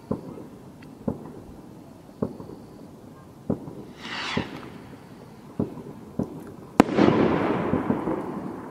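Air Raid firework rockets going off. Sharp bangs come every second or so. About four seconds in, a rocket launches with a short rushing whoosh. Near the end comes a loud crack, followed by about a second and a half of crackling hiss.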